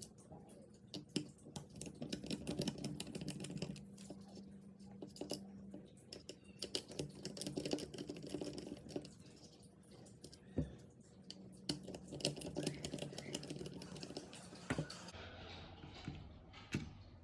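Small clicks and ticks of a screwdriver working Phillips screws out of the plastic top cover of a turn signal switch assembly, with plastic parts tapping as they are handled. A low hum comes and goes in stretches of a few seconds.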